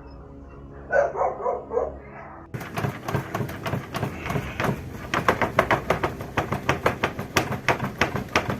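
A dog barking in a quick run of yelps about a second in. From about two and a half seconds, a louder rapid clatter of sharp knocks, several a second, takes over.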